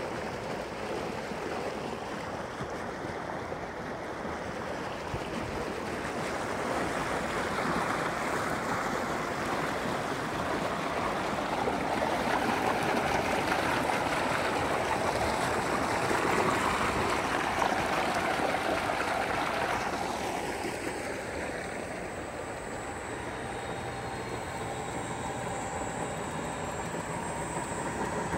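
A heavy stream of water gushing from a pipe outlet into a concrete tank, pumped by a solar-powered tube well. About twenty seconds in, the water noise fades and a steady machine hum with a faint high whine takes over: the well's electric pump motor and belt drive running.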